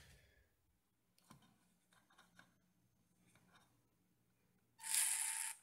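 Small brushed RC motor spinning for under a second near the end, with a steady whir over noise: a first bench test of a 10 A brushed ESC. A few faint clicks come before it.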